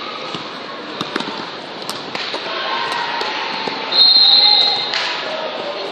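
A basketball bouncing on a gym floor with sneakers moving around it, then a referee's whistle blown once, about four seconds in, for about a second.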